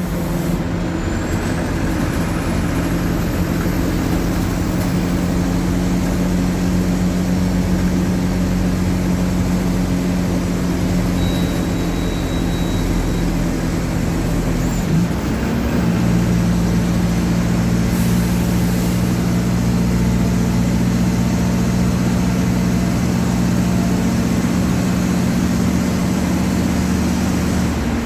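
Mercedes-Benz OF-1722M bus's diesel engine running steadily under way. Its pitch dips briefly about halfway through, then holds steady again.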